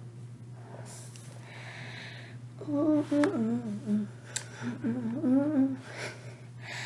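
A person humming through closed lips in two short phrases whose pitch wavers up and down, with breathy exhales before and after.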